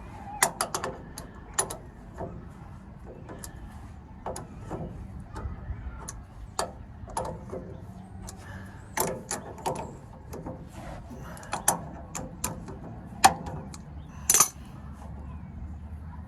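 Steel hand tools working the Pitman arm nut loose: irregular sharp metallic clicks and clinks, with a loud clink about 13 seconds in and a brief clatter a second later.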